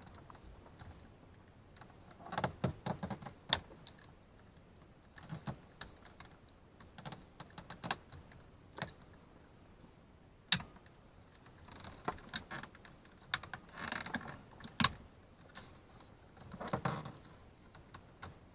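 Irregular plastic clicks and rattling as the power mirror switch's retaining clips are pressed in and the switch is worked loose from its trim housing, in several short clusters with one sharper click about ten seconds in.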